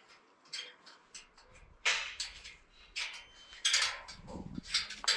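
Irregular rustling, crackling and light knocks of a hat and clothing being handled and adjusted on a fence rail, growing busier after about two seconds.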